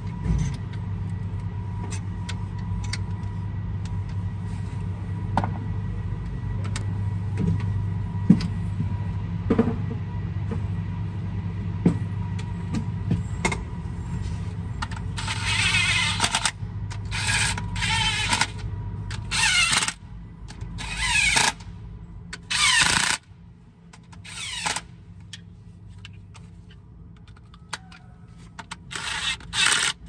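A steady low hum with light metal clicks stops about two-thirds in. From about halfway, a DeWalt brushless cordless driver runs in short bursts, each rising in pitch, on the rocker-arm bolts of a Mack MP8 engine's cylinder head, with a cluster of bursts near the end.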